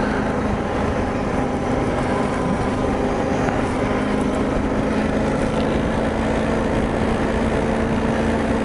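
BMW G 650 GS Sertao's single-cylinder engine running at a steady cruise, its note sagging slightly about two and a half seconds in, under a constant rush of wind and road noise.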